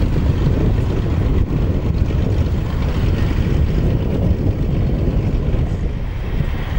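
Wind buffeting the microphone, a steady low rumble, over the running engine of a single-engine floatplane taxiing on the water.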